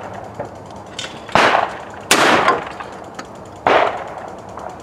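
12-gauge shotgun shots: three loud blasts, about a second and a half in, just after two seconds and near four seconds, each with a short echo, and a fainter crack about a second in.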